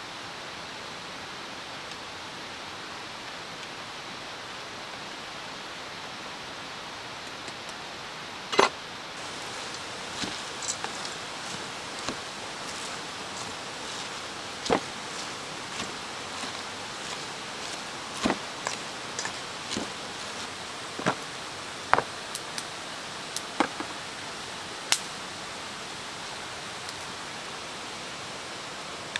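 Steady background hiss with scattered sharp clicks and taps, starting about a third of the way in, from food being prepared in a stainless steel mixing bowl: shredded cabbage and green onion mixed by hand and eggs cracked into the bowl.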